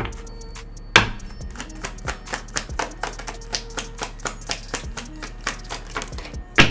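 Tarot cards being overhand-shuffled by hand: a quick, irregular run of light card clicks, about four or five a second, with a louder snap about a second in and another near the end.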